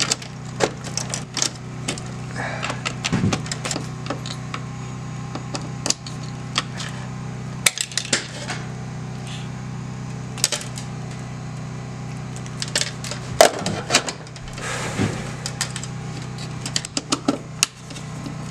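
Small clicks, taps and scrapes of hand tools, wire strippers and a screwdriver, working copper wires into breaker terminals in a metal breaker panel, irregular and scattered throughout, over a steady low hum.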